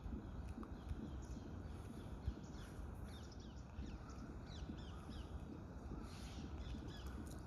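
Wild birds calling: runs of short, high, falling chirps, thickest about two to three seconds in and again near six seconds, over a steady low rumble.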